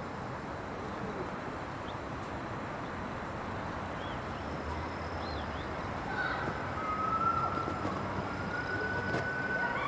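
Steady outdoor city background noise. From about six seconds in, a distant siren-like wail holds a long tone and rises slightly in pitch. A few faint chirps come a little before it.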